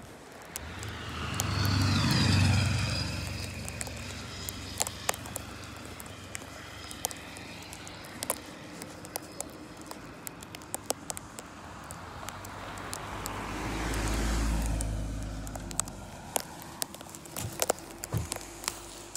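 Two vehicles drive past on a snow-covered road, one about two seconds in and another around fourteen seconds in. Each swells up and fades away, the first dropping in pitch as it goes by. Light sharp ticks run underneath.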